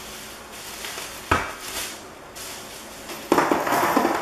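Metal printer-stand parts and hardware being handled during unpacking: a single sharp knock a little over a second in, then near the end about a second of loud clinking and clattering of small metal pieces.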